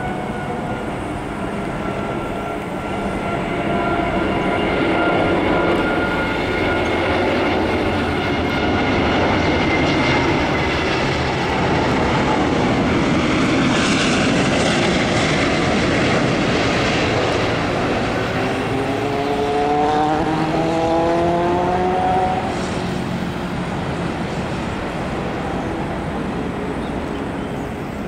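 Airbus A380 jet engines passing on the landing approach: a steady jet roar with whining tones that slowly fall in pitch, building to a peak about halfway through and easing off after. A set of rising whines joins a little after two-thirds of the way in.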